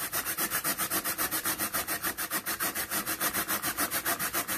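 Peeled raw potato grated on a clear plastic box grater: fast, even rasping strokes, about eight a second.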